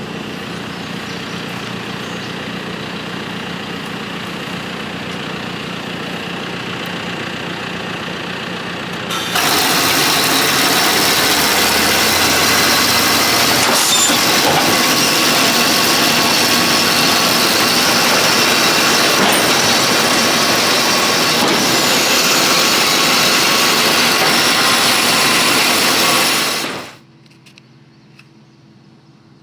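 John Deere 6150 tractor running steadily, heard from inside the cab. About nine seconds in, the sound abruptly gets much louder and stays loud until near the end, then drops sharply to a faint low hum.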